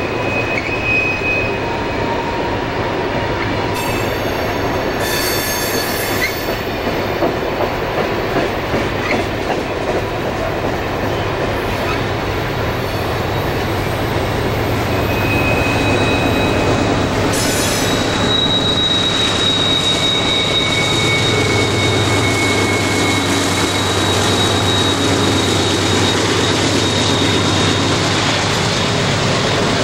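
Freight cars rolling through a tight curve, their wheel flanges squealing in thin high tones over the steady rumble of the wheels. From about halfway, Southern Pacific diesel-electric helper locomotives working upgrade pass close by, and their low engine drone grows under the continuing flange squeal.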